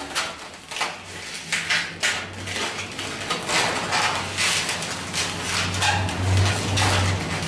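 Long 260 latex modelling balloons rubbing against each other and against the hands as they are handled and twisted, an irregular run of short scraping strokes with a few brief squeaks.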